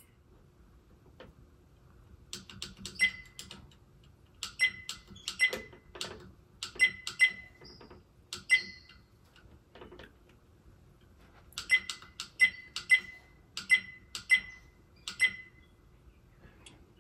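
A series of light, sharp clicks, many with a brief high ring, in two runs with a pause near the middle, over a faint steady hum.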